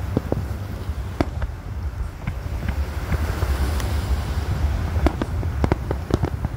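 Fireworks display: aerial shells bursting overhead in irregular bangs, sparser in the middle and coming thick near the end.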